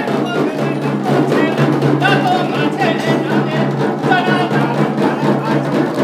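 Several jhakri shamans beating dhyangro, the Nepali shaman's double-headed frame drum on a handle, together in a steady, continuous beat.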